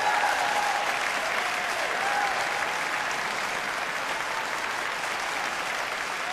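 Audience applauding steadily at the end of a performance, with a few brief pitched calls over the clapping near the start.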